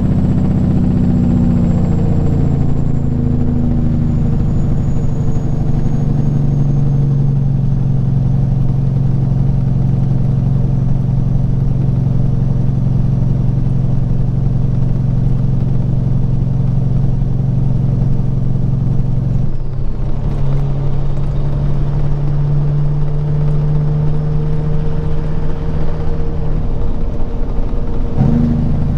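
Peterbilt 379 semi truck's diesel engine running steadily at highway speed, heard from inside the cab. The engine note shifts briefly about two-thirds of the way through and again near the end.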